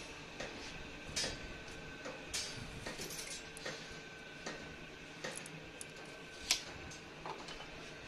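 Steel reinforcing bars clinking and knocking against each other and the bending machine's steel table as they are handled, in irregular light taps with a sharper knock about two thirds of the way in, over a faint steady hum.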